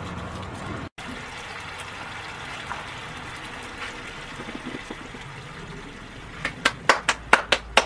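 Fish pieces cooking in sauce in a pan, giving a steady bubbling, sizzling hiss, broken by a brief cut-out about a second in. Near the end comes a quick run of about seven sharp clicks, the loudest sounds in the stretch.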